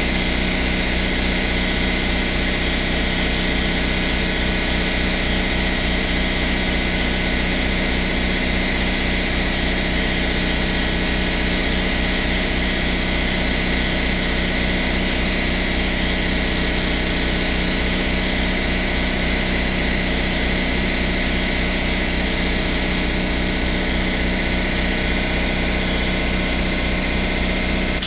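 Air compressor running steadily with a fast low pulsing, under the hiss of a paint spray gun spraying a car body panel. The spray hiss stops near the end while the compressor keeps running.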